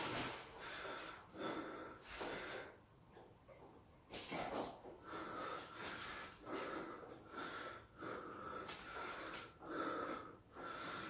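A man's breath or mouth noises: short, breathy bursts about one to two a second, several carrying a faint whistle.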